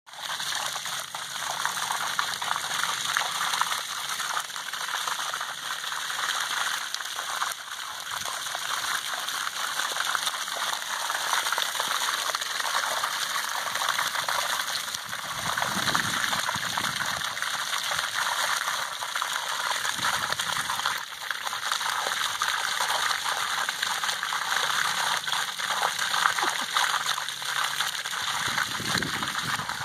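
Pool water being pumped out, gushing steadily from the end of a PVC discharge pipe and splashing onto a concrete slab.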